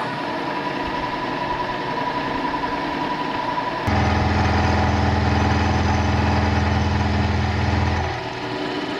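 Vertical milling machine running steadily with a constant whine. About four seconds in, a louder, deeper hum joins for about four seconds and then cuts off.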